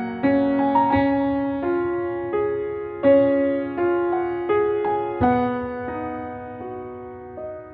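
Background piano music: a slow, gentle melody of single notes, each struck and left to fade, growing quieter near the end.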